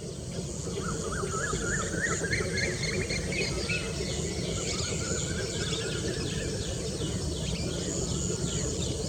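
Birds calling: a run of quick, wavering chirps over the first few seconds, then rapid repeated high notes, over a steady low background noise.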